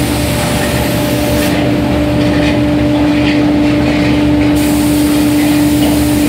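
Workshop machinery running with a steady, loud, low-pitched hum. A high hiss over it drops out for about three seconds, starting about a second and a half in, then returns.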